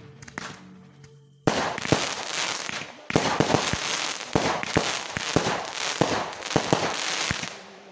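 Fireworks launching and bursting overhead: about a second and a half in, a dense crackling starts, full of sharp bangs. It pauses briefly near three seconds, then carries on until shortly before the end. Faint music is heard underneath before the fireworks start and again after they stop.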